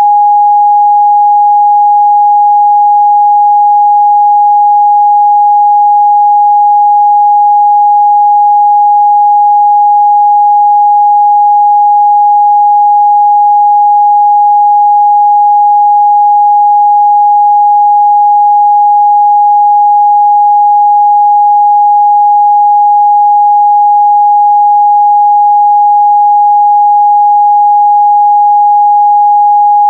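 A steady, loud 826 Hz sine-wave test tone, one pure pitch held without change.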